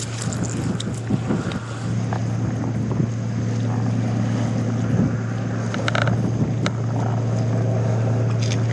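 A boat motor running at a steady pitch, a constant hum, with wind and water noise and a few short clicks over it.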